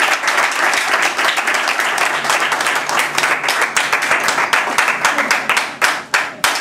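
An audience applauding, thinning out near the end to a few last scattered claps.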